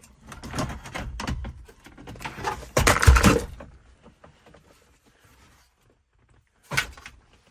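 Rattling and clicking of the factory radio and its wiring harness being handled as the factory plug is unplugged, with a louder thunk about three seconds in and one short knock near the end.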